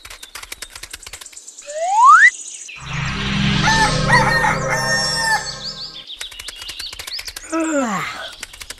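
Added cartoon sound effects: rapid ticking footsteps and a short rising whistle, then a rooster crowing for about three seconds, then more ticking and a falling whistle near the end.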